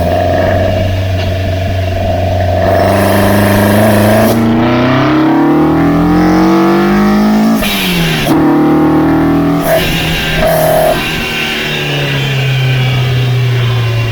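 Toyota 4A-GE 16-valve inline-four on individual throttle bodies, pulling at high revs. The pitch climbs steadily for a few seconds, drops sharply about halfway through as the throttle closes or a gear is changed, then builds again.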